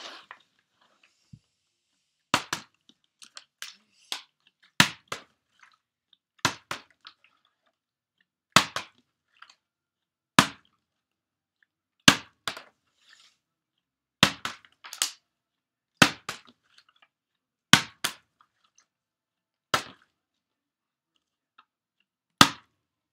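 A water bottle flipped over and over, landing on a wooden floor with a sharp knock about every one and a half to two seconds; many landings are followed by a quick second knock as it bounces or tips over.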